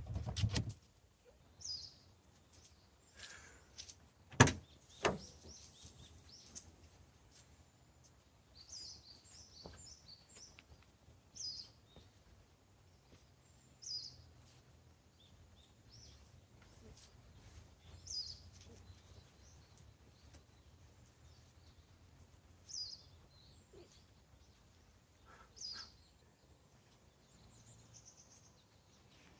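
A bird calling in short, high, falling chirps every few seconds over a faint low hum, with two sharp knocks about four and a half and five seconds in.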